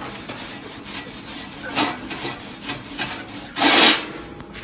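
Hand wire brush scrubbing over a freshly chipped weld bead to clear off the dust and slag residue, in uneven scraping strokes, the loudest and longest about three and a half seconds in.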